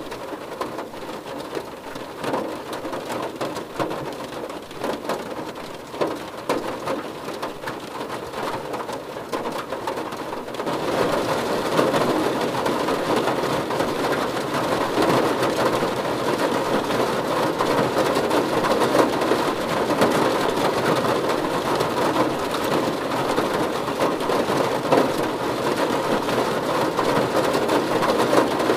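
Rain falling on a car, the drops ticking on the body and glass; it starts lighter with separate drops audible and becomes a heavier, denser downpour about ten seconds in.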